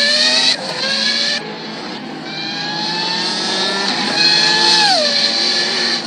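Racing car engine revving: its pitch climbs and drops twice in quick succession, then climbs steadily for about three seconds and falls away near the end.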